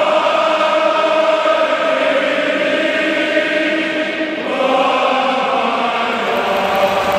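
A group of voices singing a chant together in long held notes, moving to new notes about four and a half seconds in.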